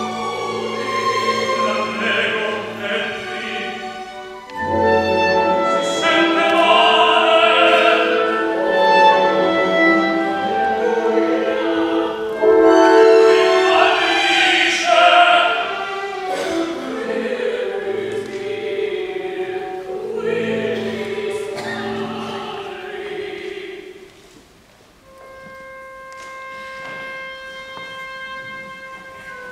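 Operatic singing with full orchestra, the voice loud and wavering. About 24 seconds in the music drops away to a single soft, steady held note.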